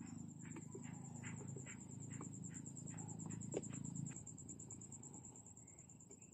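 Insects calling: a steady, high-pitched, rapidly pulsing trill, with a run of short chirps about three a second for the first few seconds. Under them a low rumble dies away after about four seconds.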